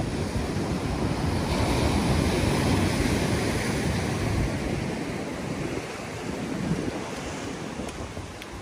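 Ocean surf surging and breaking over a rock ledge, with wind buffeting the microphone. The wash swells about two seconds in and eases off toward the end.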